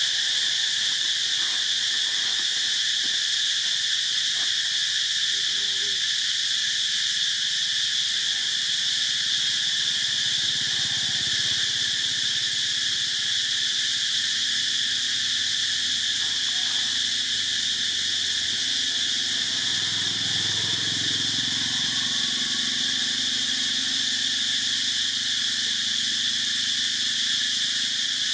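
Steady outdoor insect chorus, an unbroken high-pitched drone at an even level.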